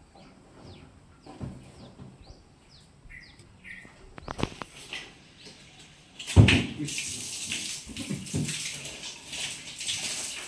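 Water rushing and splashing from the bored-well pipework, starting suddenly with a thump about six seconds in and running on steadily. Before it, small birds chirp briefly.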